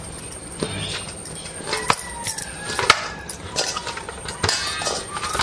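Hands kneading soft wheat-flour dough in a stainless steel bowl: the dough is pressed and folded, with scattered soft knocks of hands and dough against the bowl.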